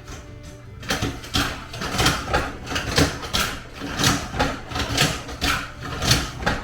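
Background music with a steady drum beat, coming in loud about a second in.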